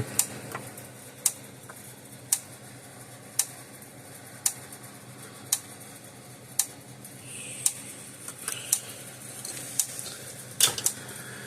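American Farmworks electric fence charger pulsing, a sharp click about once a second as it fires each output pulse: the repaired unit is working. A brief rustle sounds near the end.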